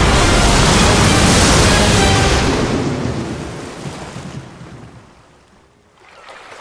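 Rough sea waves and wind making a loud, steady rushing noise that fades away from about two and a half seconds in to a low level. Faint sound from calmer water comes back near the end.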